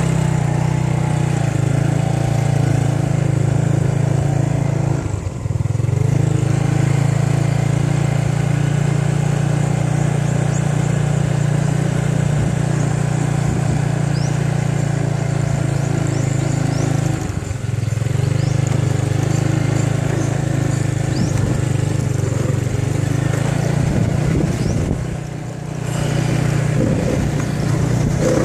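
Motorcycle engine running steadily, heard from on board while riding, with the engine note dipping briefly three times as the throttle eases.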